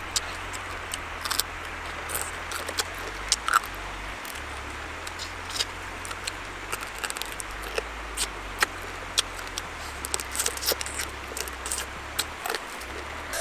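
Eating cooked crab by hand: irregular small clicks and crackles of crab shell being pulled apart and chewed, with mouth and lip smacks, over a steady low rumble.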